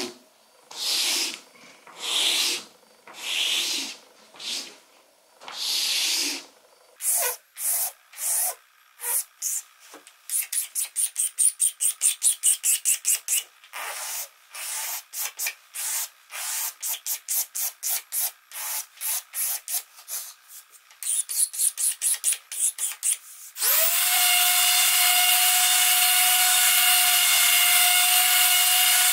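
Hand strokes rubbing along the edge of a hornbeam cutting board, about one a second at first, then quicker, about three a second. About 24 s in, a random orbital sander switches on and runs steadily on the board with a hum.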